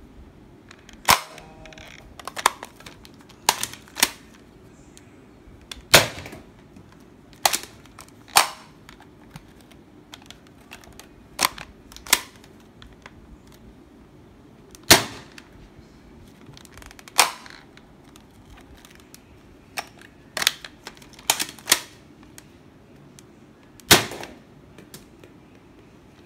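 Nerf Rival Knockout foam-ball blaster being primed and fired again and again: about seventeen sharp snaps and clacks, unevenly spaced a second or several apart, some in close pairs.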